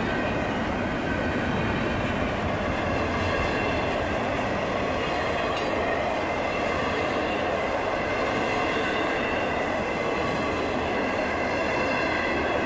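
A train passing through a grade crossing at speed: a steady, loud rumble of wheels on rail that holds level throughout, with a faint high ringing in the mix.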